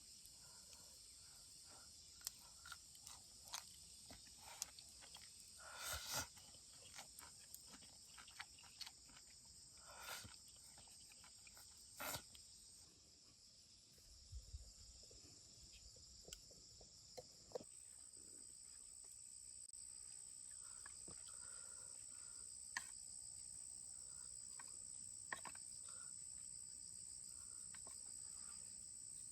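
Faint, steady high-pitched insect chorus that grows a little louder past the middle, with scattered light clicks and a few brief rustles.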